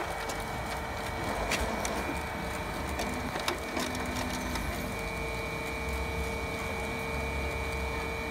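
HP Color LaserJet Pro MFP M177fw colour laser printer running as it prints and feeds out a page: a steady mechanical hum with a held high whine and scattered clicks.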